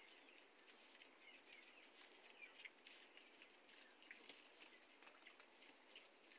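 Faint, busy chirping of small birds, many short calls overlapping, with light ticks and rustles among them.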